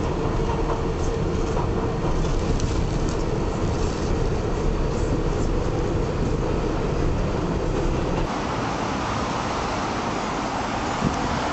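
Steady rumble and rattle of a moving subway train. About eight seconds in, the deep rumble drops away, leaving a lighter, higher noise.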